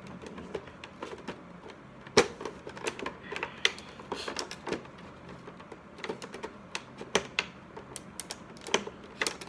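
Irregular clicks, taps and light crinkling of cosmetic packaging being handled and opened, with one sharper click a little over two seconds in.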